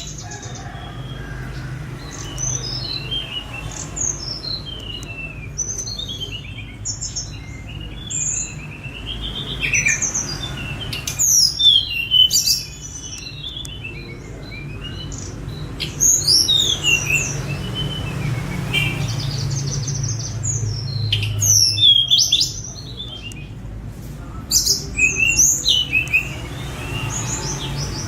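Young hill blue flycatcher singing: phrases of quick, high, sweet whistled notes sliding up and down, several phrases with short pauses between them. A steady low hum runs underneath.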